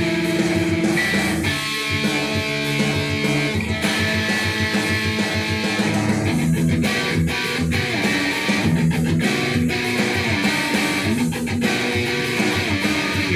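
Ibanez electric guitar played solo in an improvised lead: a line of picked single notes, some held and some in quicker runs.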